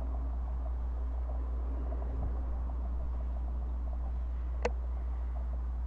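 Steady low rumble of wind on the microphone, with one short sharp click about four and a half seconds in.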